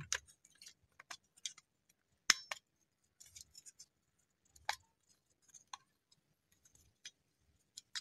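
Scattered light plastic clicks and taps from a Toyota Corolla's grey interior door handle assembly being handled and worked, with sharper clicks about two seconds in and again near five seconds.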